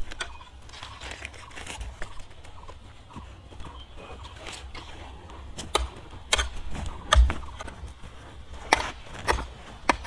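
Hands working dry, stony soil: a few scattered knocks and crunches of earth and small stones as a seedling's root ball is set into the planting hole and soil is pushed in around it, mostly in the second half.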